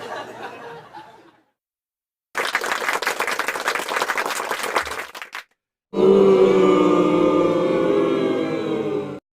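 Three stock crowd sound effects in a row, separated by short silences. First the end of a crowd laughing, then a crowd applauding and clapping for about three seconds, then a crowd booing in a long, loud, low drawn-out chorus.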